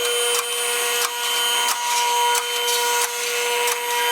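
Car lift's electric hydraulic pump motor running with a steady whine as it raises the car, with the lift's lock latches clicking every half second to second.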